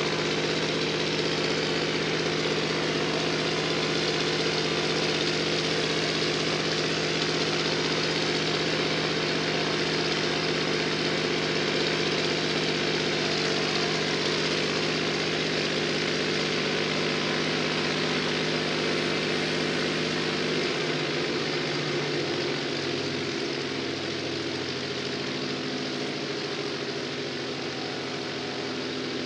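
A Zero Type 22 fighter's Pratt & Whitney radial engine and propeller running steadily on the ground at idle. About two-thirds of the way through, the engine note drops slightly in pitch and gets a little quieter.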